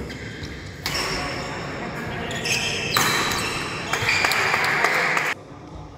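Badminton doubles rally on a wooden indoor court: rackets hitting the shuttlecock and players' shoes squeaking and thudding on the floor. It is loudest from about a second in and stops abruptly near the end.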